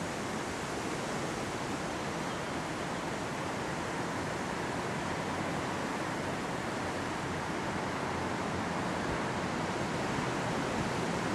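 Steady outdoor background noise: an even hiss with no distinct events in it.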